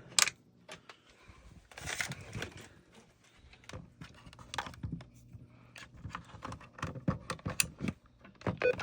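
Scattered clicks, taps and rustling of hands handling wiring and hardware at a fire alarm control panel, with a brief noisy rush about two seconds in.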